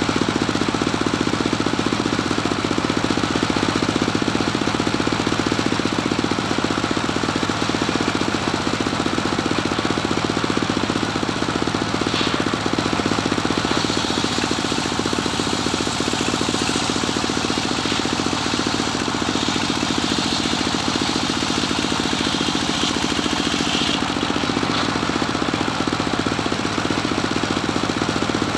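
Engine of a homemade circular sawmill running steadily with a fast, even chugging pulse, driving the saw blade as a cempaka log is fed through it. A brighter cutting hiss from the blade in the wood comes in about twelve seconds in and falls away about twelve seconds later.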